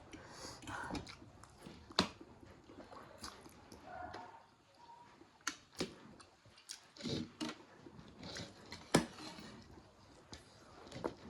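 Quiet mouth sounds of people eating noodles, close to the microphone, with a few sharp clicks scattered through: about 2, 5.5 and 9 seconds in.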